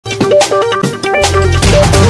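News bulletin theme music: punchy drum hits and short pitched stabs, with a deep bass note coming in about a second in.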